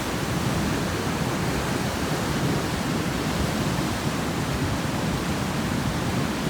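Ocean surf churning against a rocky shore at high tide: a steady, even roar of broken water, with no single wave crash standing out.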